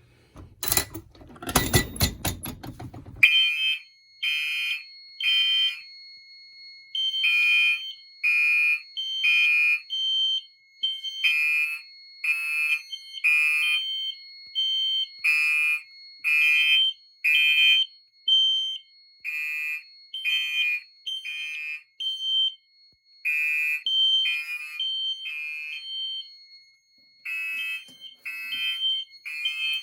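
Loud clicking and clattering as a fire alarm pull station is pulled. About three seconds in, the alarm system's Gentex horns start sounding a code 3 (temporal-three) pattern of three beeps and a pause. Several horns beep out of step with each other over a steady high tone.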